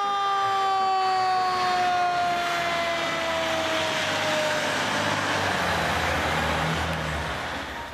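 Fire engine pulling out with its siren sounding: one wail that falls slowly in pitch over about four seconds and fades out, over the steady rumble of the truck's engine.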